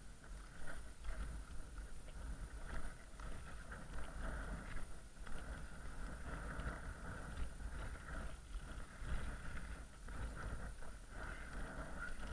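Strong gusting mountain wind in a blizzard, buffeting the microphone with a low rumble and a higher hiss that swells and fades with the gusts.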